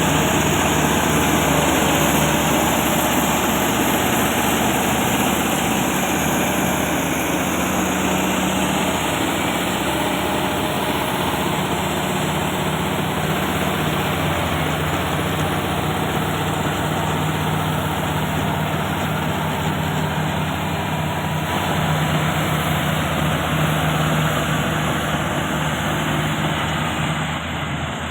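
Komatsu D155A-6 bulldozer's diesel engine running steadily as the dozer works, a loud continuous drone with a dense mechanical clatter, easing off slightly near the end.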